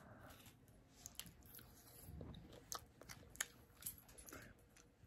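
Faint chewing of a spoonful of fruit bowl, with a few small scattered crunches and clicks.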